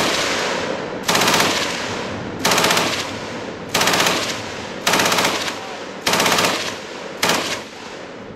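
MG42 belt-fed machine gun firing six short bursts about a second and a quarter apart, each a very fast ripple of shots, with the echo dying away between bursts.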